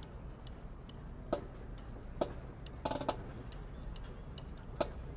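Scattered sharp clicks and taps, about five in all, one short cluster near the middle with a brief ringing pitch, over a low steady hum.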